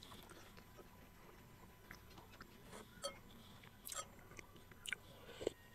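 Faint close-up chewing of soft glutinous rice balls: quiet wet mouth sounds broken by a few sharp clicks and smacks, the loudest near the end.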